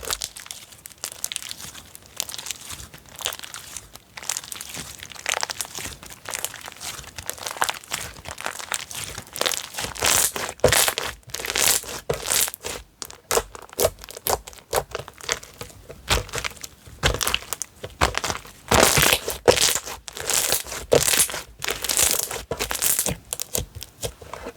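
Slime being squeezed, pressed and stretched by hand, giving a dense, irregular run of crackles and pops, louder in the last third.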